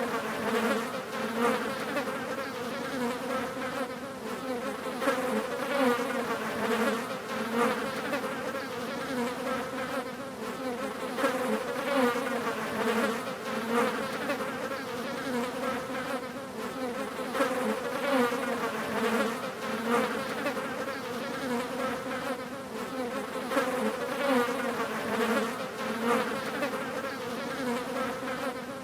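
Several flies buzzing continuously, their overlapping drones wavering in pitch.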